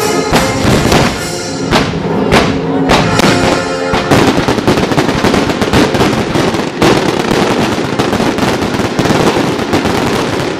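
Fireworks going off over music played for a pyromusical show: sharp bangs and crackling that become dense and almost continuous about four seconds in.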